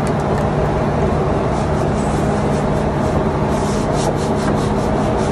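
Steady drone of a ship's engine-room machinery, with rubbing and scraping from cleaning out the inside of an oily water separator's first-stage chamber, a run of quick scraping strokes in its second half.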